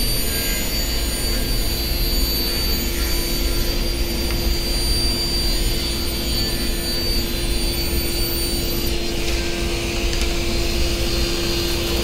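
Felder table saw running a 250 mm, 60-tooth crosscut blade while ripping a solid-wood board along the grain, a steady hum with cutting noise, together with the dust extractor running. The 60-tooth blade cuts through the solid wood easily.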